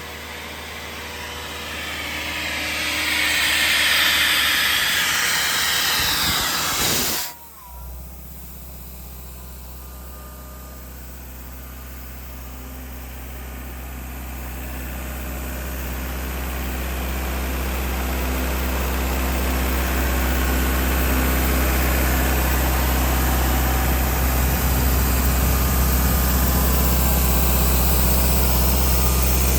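Atlas Copco XAS 137 mobile air compressor running on its Deutz diesel engine, with a loud hiss of compressed air for the first seven seconds that cuts off suddenly. The diesel then runs steadily and grows gradually louder.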